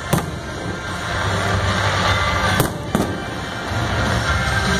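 Aerial firework shells bursting with three sharp bangs, one right at the start and two close together past the middle, over music.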